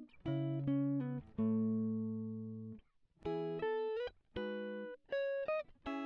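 Background music: a plucked-string melody played in short phrases, each note dying away, with brief silences between the phrases.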